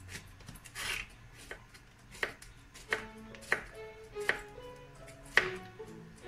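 Kitchen knife slicing peeled zucchini into rounds on a wooden cutting board, each cut ending in a sharp knock of the blade on the board, about seven cuts at an uneven pace, over soft background music.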